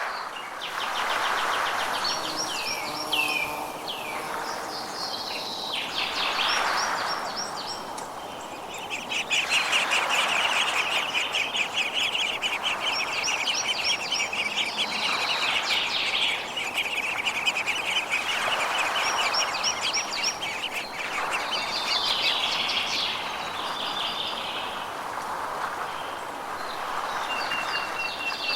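Songbirds singing: repeated short high whistled phrases, and a long buzzy trill that runs for about ten seconds through the middle, over a steady background hiss.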